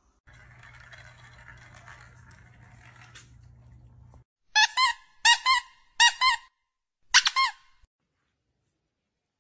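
Kitten mewing: four short, high, squeaky mews, each rising and falling twice. The first three come in quick succession and the last follows a slightly longer pause. Before them there is a few seconds of faint low hum and room noise.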